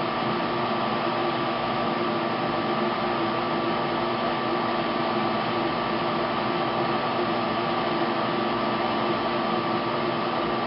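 Laminar flow cabinet's blower running steadily: an even rush of air with a few constant humming tones.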